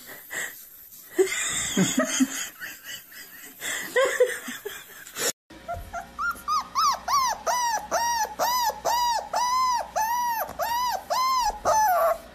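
A few short knocks and rustles, then, after a brief break, a pit bull-type dog whining in a long run of rising-and-falling cries, about two a second.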